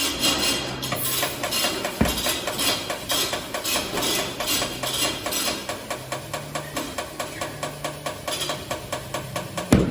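Tire being inflated with compressed air on a tire changer: a hiss of air, then a rapid, regular ticking pulse of about three beats a second as the air flows in. Two sharp thumps come through, about two seconds in and near the end.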